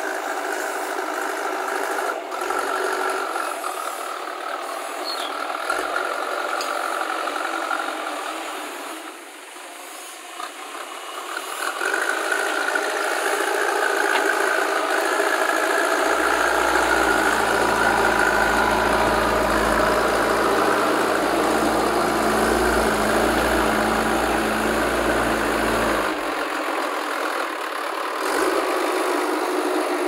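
Diesel engine of a JCB 3DX backhoe loader running under load while the front loader bucket pushes and scoops soil. The sound dips briefly around ten seconds in, then comes back louder and steady.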